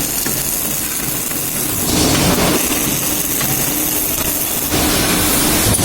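Robotic MIG welding: the welding arc hissing and crackling steadily over machine hum, its noise shifting in strength about two seconds in and again near the end.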